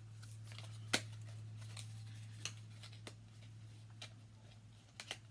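Scattered small clicks and taps of cosmetics packaging being handled, the sharpest about a second in, over a steady low hum.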